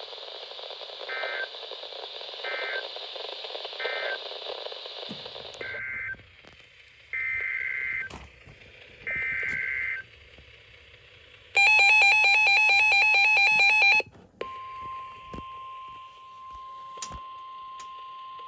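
NOAA Weather Radio alert sequence. Three short end-of-message data chirps sound over radio static. Three longer SAME header data-burst screeches follow, announcing a new alert, then a loud pulsing electronic alert buzz for about two and a half seconds, and from about fourteen seconds in the steady single-pitch weather radio warning alarm tone (1050 Hz) that precedes a warning.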